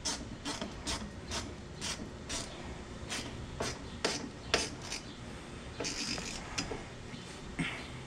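Hand tool working a metal fastener: sharp clicks about twice a second with faint scraping between them, as a ground wire connection is being tightened.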